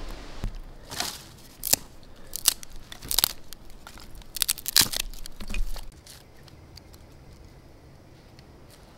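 Dry twigs crunching and snapping as they are broken and laid into a dug fire pit: a string of sharp cracks, several close together about four to five seconds in, stopping about six seconds in.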